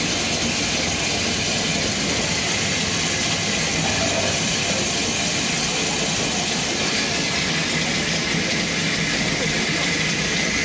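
Steam locomotive B 5112 standing with steam hissing steadily, an even, unbroken hiss.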